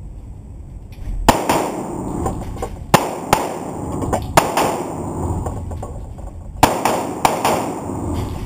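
Six .45 ACP pistol shots from a Glock 21, fired at an uneven pace: one about a second in, a quick pair near 3 s, one near 4.5 s and a pair near the end. Each shot rings on in the long echo of an enclosed indoor range.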